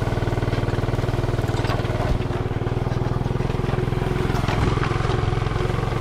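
Vehicle engine running at a steady speed, with a fast, even throb.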